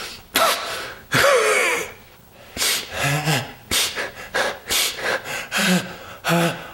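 A man's theatrical, staged sneezing: two loud noisy sneeze bursts in the first two seconds, the second with a falling voiced tail, then a run of about ten short, sharp gasping breaths.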